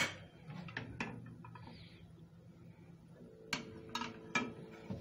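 Light clinks and knocks of a steel frying pan on a gas stove's grate and of a cooking-oil bottle being handled, a few near the start and a few more near the end. A faint steady hum starts about three seconds in.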